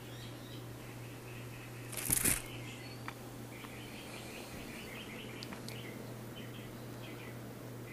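A steady low hum under faint, scattered high chirps, with a brief rustle about two seconds in and a few small clicks later.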